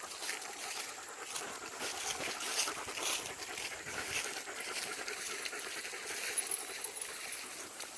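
German Shepherd panting, with irregular rustling and crackling throughout.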